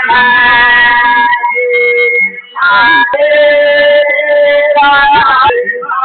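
A song with a singing voice holding long, steady notes over instrumental backing, with a short break between phrases about halfway through.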